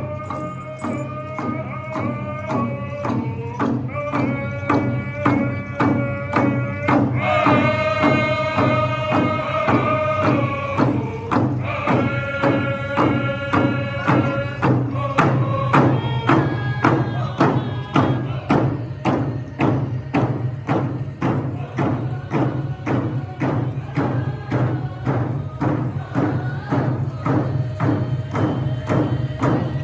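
Powwow drum group: a steady, even beat on a big drum under several voices singing in unison, in high held notes.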